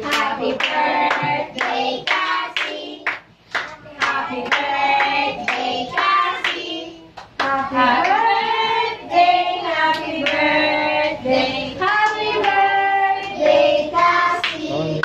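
A class of young children singing together in chorus, with hands clapping along.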